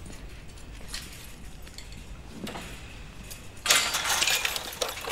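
Low background hum, then about three and a half seconds in a sudden loud metallic rattling and jangling starts and keeps going.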